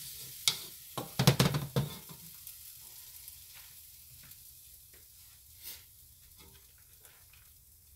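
A wooden spatula scrapes and knocks against a wok of stir-frying vegetables for the first couple of seconds. After that only a faint sizzle is left, dying down, with occasional light ticks.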